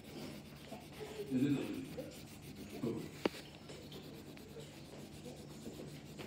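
Coloured pencil rubbing and scratching on paper in repeated colouring strokes, with one sharp click about three seconds in.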